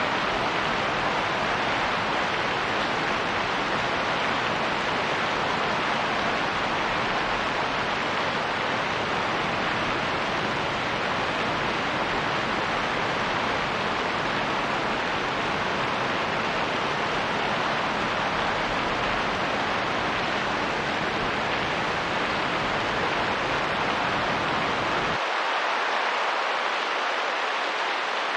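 Steady rain and wind, an even rushing hiss with no separate drops or gusts standing out. About 25 seconds in, the deep low rumble cuts out abruptly, leaving a thinner hiss.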